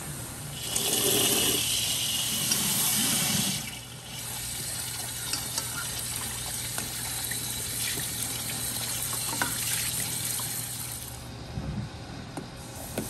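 Liquid pouring for about three seconds, then a softer steady hiss with scattered small clicks.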